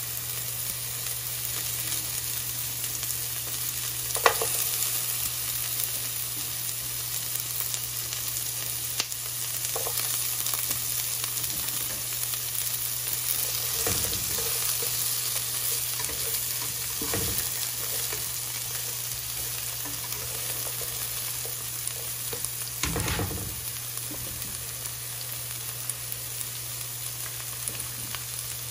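Chopped onion and garlic sizzling steadily in olive oil in a nonstick frying pan, with a few scrapes and knocks of a plastic slotted spatula stirring them.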